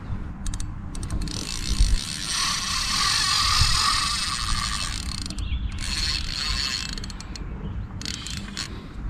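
Fishing reel whirring with a fast, fine clicking, in a long run from about two seconds in and a shorter one about six seconds in, over a low rumble.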